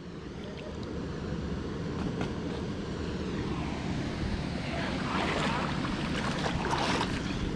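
Steady low rumble with shallow river water sloshing and splashing around a wading angler's legs and hands, the splashing stronger in the second half.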